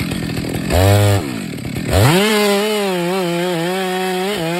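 Two-stroke chainsaw engine blipped briefly about a second in, then revved up to high speed at about two seconds and held there with slight wavers in pitch.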